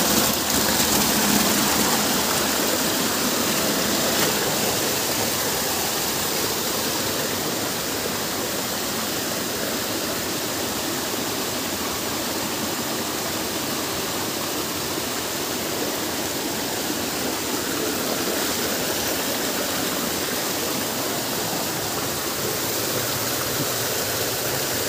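Steady rush of flowing water, as from a stream or small waterfall.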